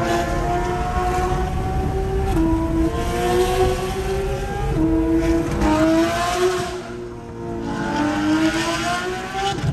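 Porsche 911 GT3 RS flat-six heard from inside the cabin, pulling hard through the gears: the engine note climbs, then drops sharply at each of several upshifts, with a brief easing off about two-thirds of the way through.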